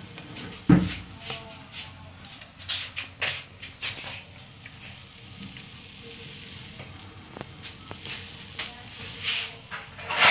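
Egg-dipped bread frying on a flat griddle pan, sizzling with scattered crackles. A single thump about a second in.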